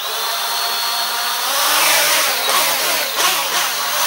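A small home-built quadcopter's four motors and propellers running under throttle: a steady buzzing whine with several pitches that waver as the motor speeds change, growing louder after about two seconds as the craft lifts off against its tether.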